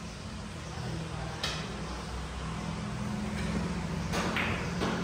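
Carom billiard balls clacking in a three-cushion game: one sharp click about a second and a half in, then two more near the end, over a steady low hum.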